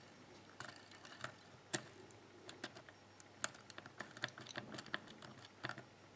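Faint, irregular small metallic clicks of a lock pick lifting pins in a pin-tumbler cylinder held under tension, as serrated pins click past the shear line. Two clicks, about 1.75 s and 3.5 s in, stand out as louder.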